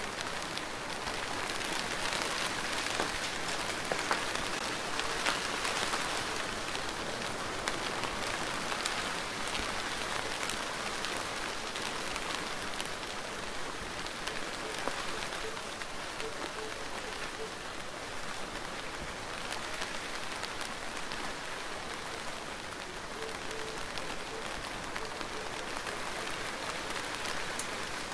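Steady rain falling without let-up: an even hiss of rainfall with many separate drops ticking through it.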